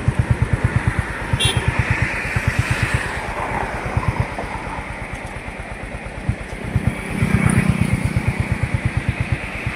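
Road vehicle engine running with a steady low pulsing, several beats a second, under road noise, heard from a vehicle travelling along a highway. A louder rush about seven seconds in, like a passing vehicle.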